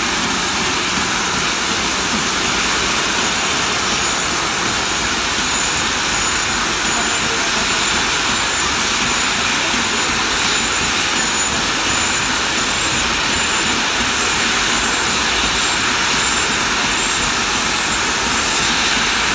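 LMS Royal Scot class steam locomotive No. 46100 blowing off steam through its safety valves: a loud, steady hiss that does not let up. It is the sign of a boiler at full working pressure while the engine stands.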